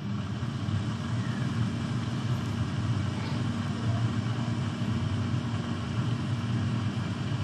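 Electric air fryer running: its fan blowing steadily with a low hum.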